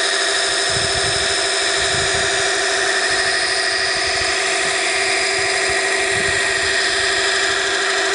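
Small 12-volt mini belt grinder running with a steady motor whine, a knife blade held against the moving abrasive belt adding a grinding hiss.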